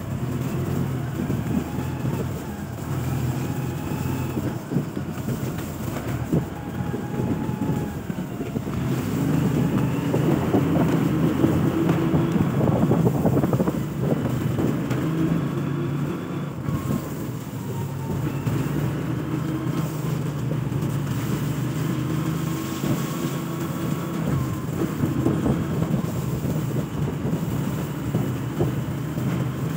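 Motorcycle engine running under way on a rough dirt road, its revs rising and falling several times with the throttle.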